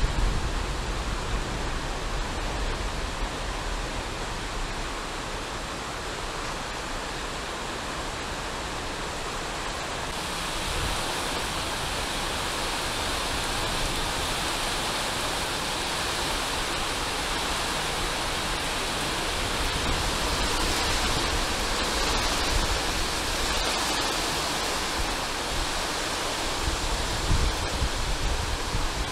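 Heavy rain falling on an elevated subway station and its tracks: a steady hiss that grows brighter and louder about ten seconds in.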